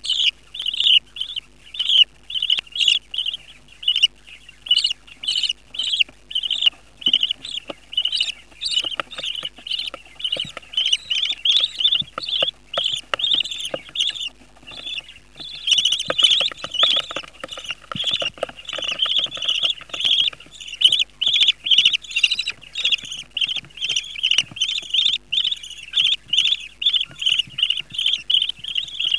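Budgerigar chicks giving rhythmic begging cheeps, about two a second, growing quicker and louder a little past halfway: the chicks calling to be fed.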